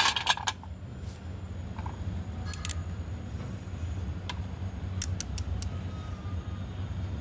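Horse brand slate pencil sticks clicking against each other and a steel plate as they are stacked by hand: a cluster of light clicks at the start, scattered single clicks, then a quick run of four about five seconds in. A steady low hum sits underneath.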